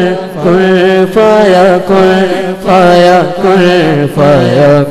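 A young male voice singing a devotional naat through a microphone, in long wavering phrases of about a second each, over a steady low drone.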